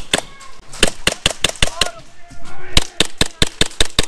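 HPA airsoft rifle with a Polarstar F2 engine firing sharp pneumatic shots in quick strings of about five a second. There is a short run, a pause of about a second, then a longer run near the end.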